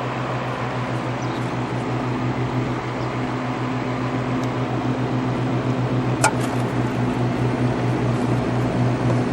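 1967 General Electric Fashionette 6000 window air conditioner running: a steady rush of air from its fan over a low electrical hum, with a single sharp click about six seconds in.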